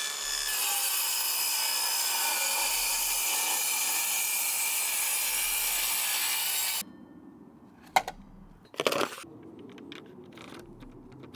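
Evolution circular saw running on its guide track and cutting through an OSB board, a steady sawing sound that cuts off abruptly about seven seconds in. Two short knocks follow near the end.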